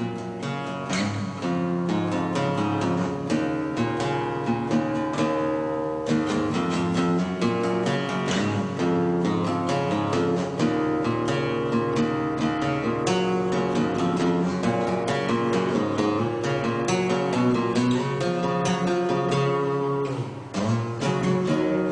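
Background music on acoustic guitar, plucked and strummed, with a steady flow of notes.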